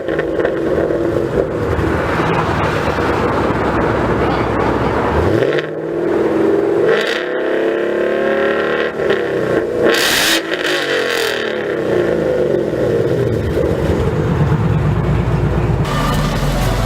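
High-performance sports car engine revving and accelerating, its pitch rising and falling several times in the middle, with a sharp burst of sound about ten seconds in.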